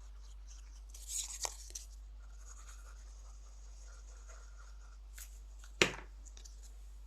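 Paper handled on a craft table while cardstock strips are glued in place: brief rustling and scraping about a second in, then a single sharp tap near the end, the loudest sound.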